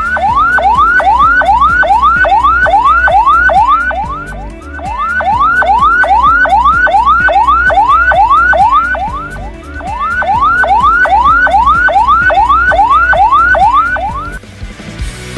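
Ambulance electronic siren sounding a fast repeating rising whoop, about two and a half sweeps a second, in three runs of about four seconds each with short breaks between.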